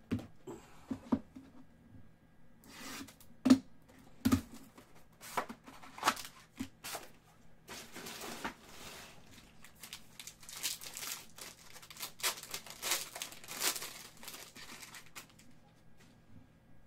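Scattered taps and clicks of cards and packaging being handled, then, about halfway through, a foil trading-card pack torn open and its wrapper crinkled, with a dense run of crackling.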